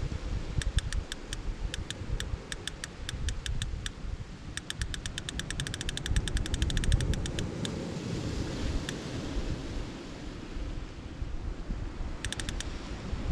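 Fishing reel's ratchet clicking in runs as line is pulled off the rod on its tripod: about four clicks a second at first, a faster run in the middle, then a short burst near the end, the sign of a fish taking the bait. Wind rumbles on the microphone throughout.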